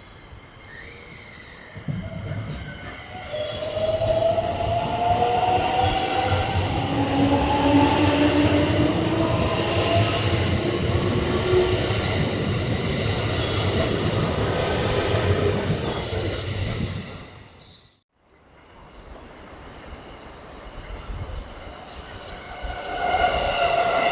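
A train running past, with wheel and rail rumble and a motor whine whose tones fall in pitch. The sound builds over the first few seconds, holds loud, then cuts off abruptly about three quarters of the way through. Another train's sound rises again near the end.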